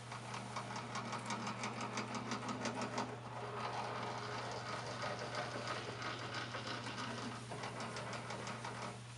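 Handwheel on the upper housing of a DoAll 3612-H vertical band saw being cranked, giving a rapid mechanical clatter of about five clicks a second over a steady low machine hum. The clatter stops about nine seconds in.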